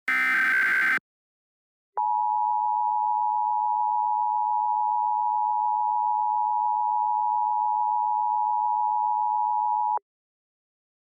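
Emergency Alert System broadcast opening: a one-second screeching burst of SAME header data, then after a second's silence the EAS two-tone attention signal (853 and 960 Hz), a steady dual tone held for about eight seconds that cuts off abruptly. It marks the start of an Emergency Action Termination (all-clear) alert.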